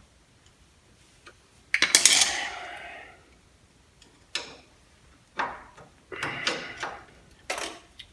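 Metal hand tools clinking and clattering in several short bursts, the loudest about two seconds in with a brief ringing tail, while the cotter pin is being pulled from the outer tie rod end.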